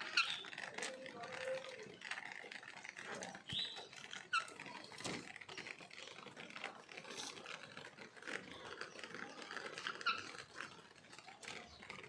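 Steady patter and dripping of rain, with a pet parrot giving a few short chirps and squawks: one near the start, two around four seconds in, and one near ten seconds.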